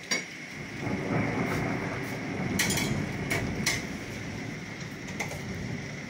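Thunder rumbling after a nearby lightning strike in a heavy storm: a deep rumble builds about a second in and rolls on, with a few sharp clicks over it.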